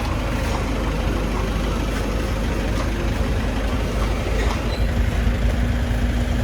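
Steady rumble and road noise of a car driving.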